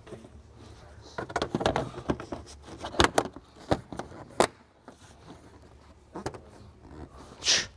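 Plastic intake air duct being handled and fitted into place in the engine bay: a run of clicks and rattles, then three sharp knocks a little under a second apart, and a short scraping rustle near the end.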